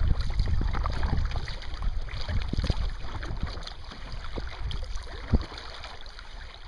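Kayak paddle strokes splashing and dripping in calm shallow water, with wind rumbling on the microphone and a louder thud about five seconds in.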